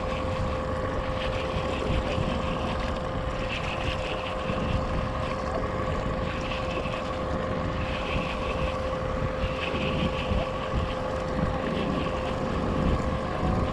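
Small skiff outboard motor running at a steady hum, with wind on the microphone. A baitcasting reel is cranked in short spells while a hooked fish is reeled in.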